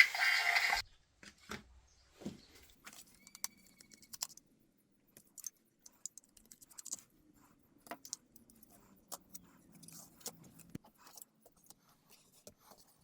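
Music cuts off under a second in. After that there are faint, scattered clicks and light rattles of small plastic parts being handled, with no steady rhythm.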